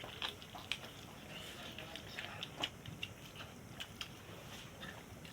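A person chewing food, with scattered short clicks and smacks, the sharpest a little past the middle.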